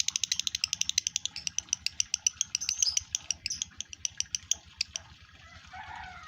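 Male lovebird in breeding condition chattering: a fast, even string of sharp, high chirps at about ten a second that stops about five seconds in, followed by softer, lower calls.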